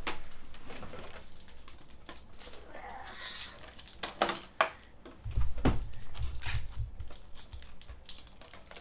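A cardboard collection box and foil card packs being handled and pulled out: scattered clicks and taps, a brief rustle about three seconds in, and dull bumps between about five and seven seconds in.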